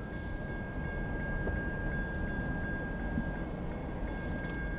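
Railroad grade crossing bell ringing with a steady, high, unbroken tone while the gates are down and the warning lights flash, over a low rumble.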